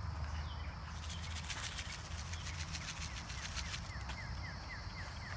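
A bird calling a quick run of about ten short, even chirps in the last two seconds, over a steady low hum and faint scattered ticks.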